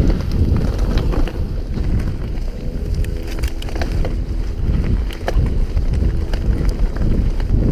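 Wind buffeting the microphone over the rattle and knocks of a mountain bike descending a rough dirt trail at speed. Its tyres roll over roots and stones, and a brief droning tone comes in about two and a half seconds in.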